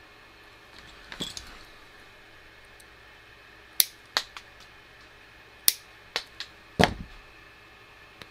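Sharp clicks and taps of small hand tools, such as flush cutters, handled on a workbench. A loose cluster comes about a second in, then single sharp clicks spread through the middle, and a duller, heavier knock about seven seconds in.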